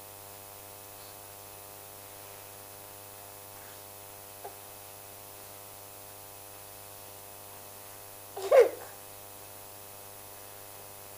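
Steady electrical mains hum, with a toddler's short vocal squeal close to the microphone near the end.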